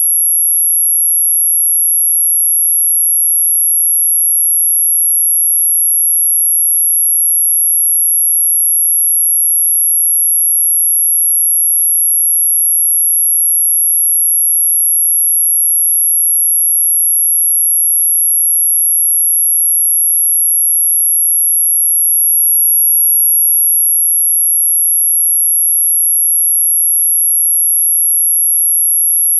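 A single steady, very high-pitched pure tone, constant in pitch and loudness, generated as a mosquito-repellent sound.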